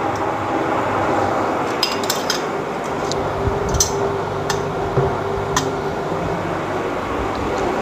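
Metal tongs and dishes clinking a few times against a cast-iron pot and plate, over a steady hiss and low hum.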